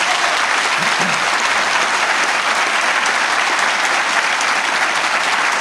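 Audience applauding steadily: many hands clapping at once.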